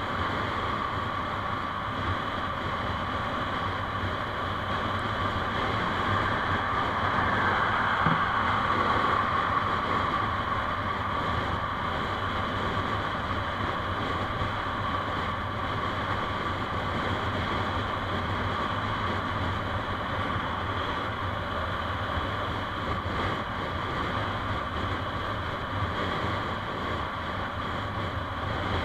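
Steady driving noise of a moving road vehicle: engine, tyres on the road and wind on the microphone, swelling slightly about eight seconds in.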